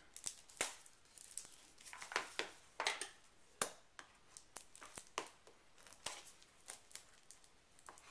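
Scissors snipping and cutting at the wrapping of a cylindrical cardboard motor box, with crinkling and tearing and a string of irregular short clicks from the blades.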